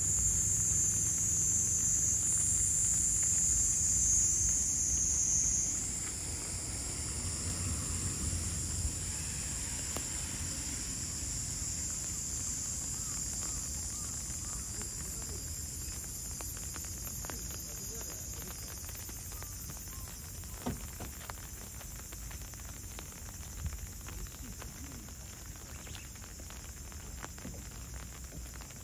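Insects singing in a high, steady chorus that stops about six seconds in, over a low rumble. After that only a fainter hiss is left, with a couple of soft clicks.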